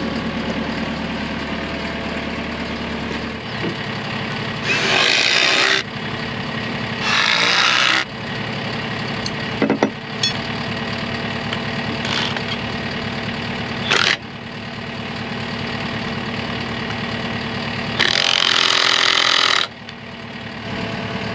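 Cordless driver running in three short runs of about a second or two each, driving screws at the base of a wooden post, with a few sharp metal clicks between them. Under it, a machine's engine idles steadily.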